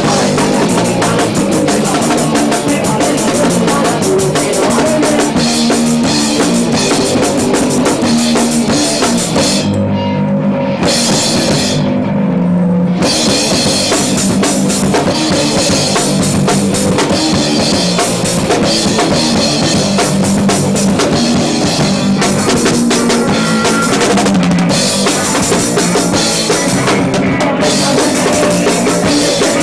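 Punk rock band playing live in an instrumental passage without vocals, led by the drum kit with bass drum and snare. The high cymbal wash drops out for about three seconds around ten seconds in.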